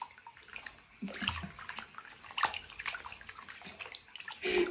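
Shallow water sloshing and splashing in a basin as a cat lies in it and moves its paws and head, in small irregular splashes, with a louder burst near the end.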